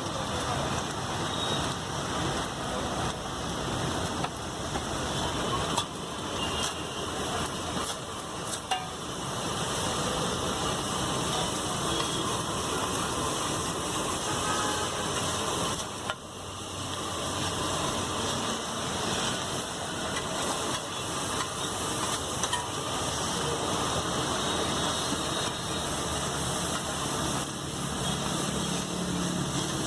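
Slotted metal spatula stirring and scraping rice on a large flat griddle, over a steady frying sizzle, with a few sharp clinks of the spatula against the metal.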